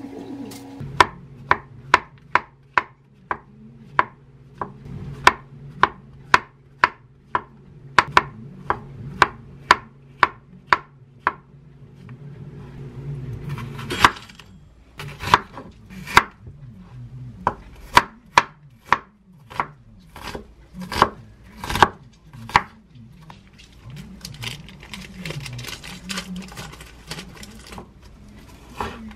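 Chef's knife slicing button mushrooms and then an onion on a wooden cutting board: a steady run of knocks about two a second, more uneven cuts after about fourteen seconds, and quicker, lighter dicing strokes near the end.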